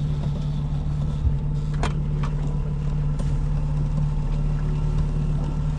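Boat engine running steadily at trolling speed, a constant low hum. A sharp click sounds about two seconds in.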